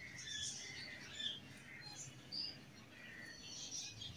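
Small birds chirping: faint, scattered short high calls.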